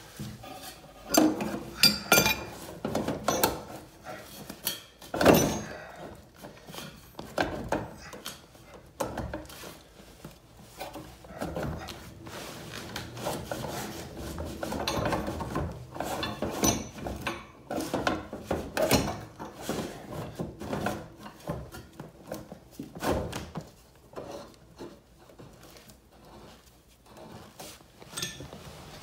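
Irregular knocks, thuds and scraping from hands and a pipe wrench working at the steam valve inside a convector radiator's enclosure, the sharpest knocks in the first few seconds.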